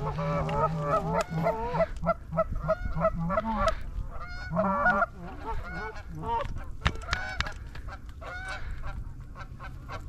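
Canada geese honking and clucking, many calls in quick succession, growing sparser after about five seconds.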